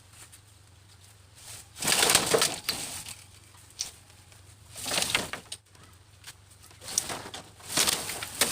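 Bamboo crackling and splitting in about four separate noisy bursts, a few seconds apart.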